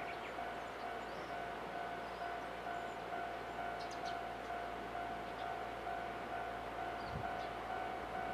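Japanese railway level-crossing alarm sounding in the distance, a steady, slightly pulsing electronic tone that warns of the approaching train. A few short, high chirps are heard over it.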